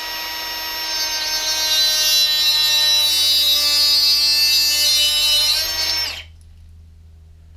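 Ridgid 3-inch cut-off tool with a small cutting wheel running and cutting through braided PTFE fuel hose, throwing sparks. The motor whine grows louder about a second in as the wheel bites into the hose, then winds down and stops about six seconds in.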